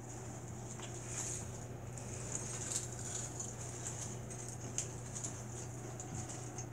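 Faint, scattered crunching and crackling of potato chips, as one is chewed and the heaped chips shift and rustle, over a steady low hum.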